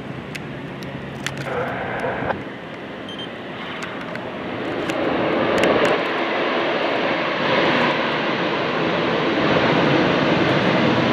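Aircraft engine noise from a plane passing on the runway, swelling from about four seconds in and then holding loud and steady.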